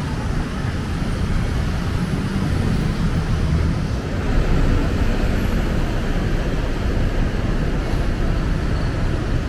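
Steady noise of busy city road traffic: cars, taxis and motorcycles running on a multi-lane road.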